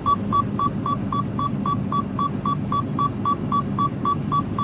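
Mercedes Actros cab's seatbelt warning beeper beeping rapidly and evenly, about three to four short beeps a second, over the truck's engine running underneath: the driver's seatbelt is unfastened.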